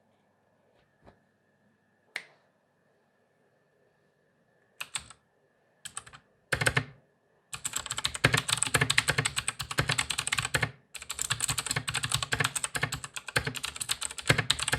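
Royal Kludge RK61 mechanical keyboard with clicky Gateron Blue switches being typed on. A few single keystrokes and short bursts come first, then fast continuous typing from about halfway, broken by a brief pause about two-thirds through.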